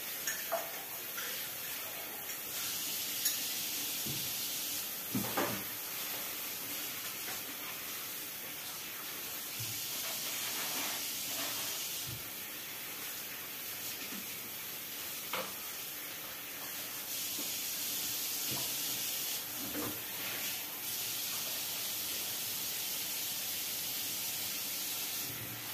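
Kitchen tap running into a sink during hand dishwashing, the flow growing stronger and weaker a few times, with a few light clinks of dishes.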